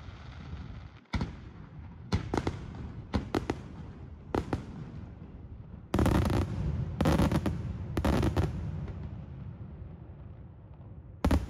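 Daytime aerial fireworks: shells bursting overhead as sharp bangs, some single and some in quick clusters, over a continuous rumble of echo. The densest, loudest volleys come about halfway through, with one more sharp bang near the end.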